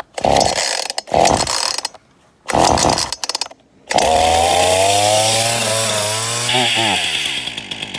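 Ryobi 18-inch two-stroke chainsaw being pull-started cold: three short pulls of the starter cord, then the engine catches about four seconds in and runs at high revs. The speed drops a little before the end.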